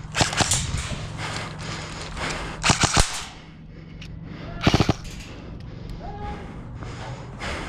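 Airsoft guns firing in three short rapid bursts: shortly after the start, about three seconds in, and near five seconds in.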